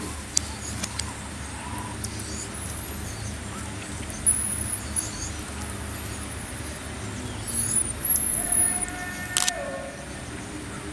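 Marmosets giving short, very high-pitched chirps and thin whistles scattered throughout, over a steady low background rumble. Late on, a lower wavering call and a few sharp clicks stand out.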